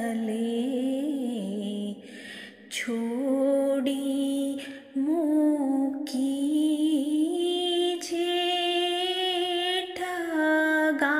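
A woman singing a ginan, an Ismaili devotional hymn, in a slow melody of long, gently wavering notes, with brief breaks about two seconds in and again near five seconds.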